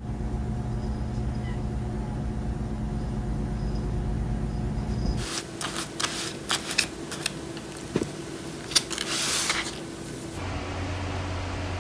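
A steady low hum for about five seconds, then a run of light clicks and rustles with a short hiss, and a different steady low hum starting near the end.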